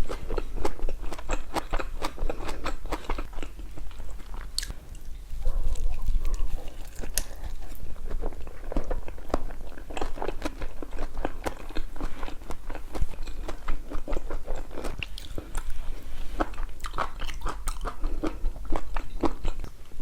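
A person eating close to the microphone: steady biting and chewing with crunchy, wet mouth sounds and a rapid, irregular run of small clicks.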